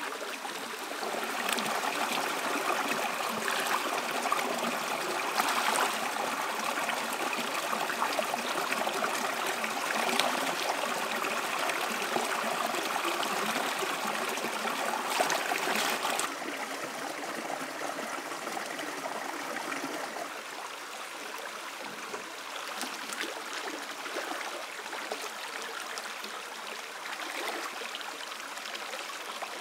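Shallow rocky stream running and gurgling, with occasional splashes from wading feet and hands reaching into the water. The water noise is louder in the first half and drops to a lower, steadier level a little past halfway.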